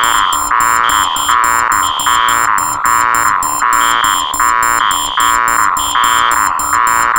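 Four electronic alarms layered into one loud, continuous din. Harsh beeps repeat about twice a second over a steady high tone, with a shriller beep cutting in and out and rapid ticking on top.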